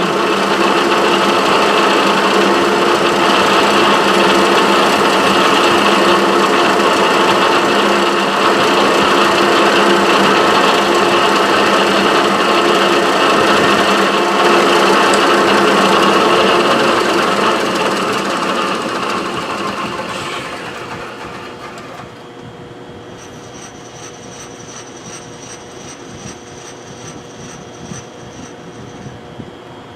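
Milling machine spindle running steadily with a drill chuck while drilling screw holes in a Delrin block. It is then switched off and winds down over a few seconds, leaving a quieter steady hum.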